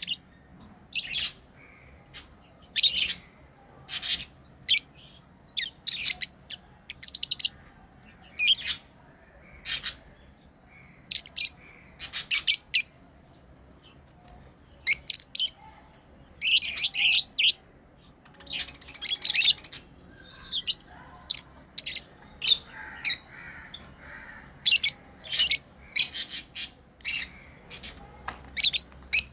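Pet lovebirds chirping: short, sharp, high-pitched calls in irregular clusters, often several in quick succession, with brief pauses between.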